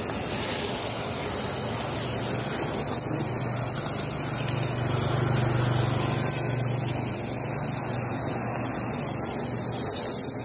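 Handheld butane blow torch burning with a steady hiss as its flame is played over a skewer of squid. A low rumble swells and fades around the middle.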